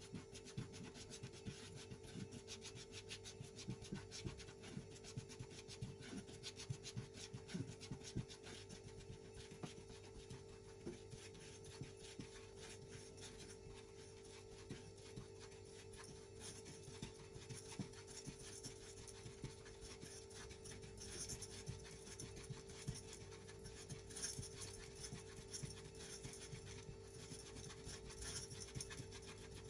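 A silicone spatula stirs dry granulated sugar in a granite-coated nonstick saucepan, making a faint gritty scraping in quick, irregular strokes as the sugar is heated for caramel. A faint steady hum runs underneath.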